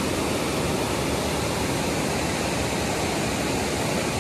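Waterfall cascading over rock ledges into the river, a steady, even rush of water.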